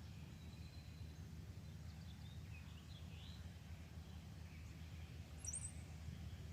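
Distant songbirds calling faintly over a low steady background rumble: a few short chirps and sweeping whistles, then one brighter, higher quick call about five and a half seconds in.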